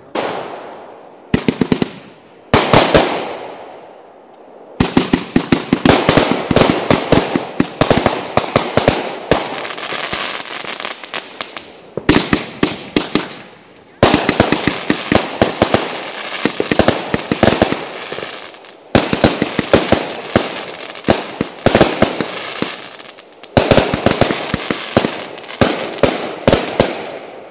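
Fireworks going off in rapid volleys of sharp bangs, many reports a second. The volleys run for several seconds each, with short breaks between them.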